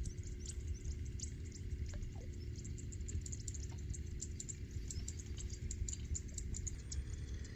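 Open-air ambience by a pond: a steady low rumble with many faint, scattered high ticks.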